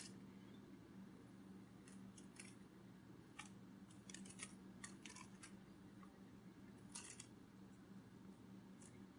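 Near silence: a low steady hum with faint, dry clicks at irregular intervals, several bunched in quick runs.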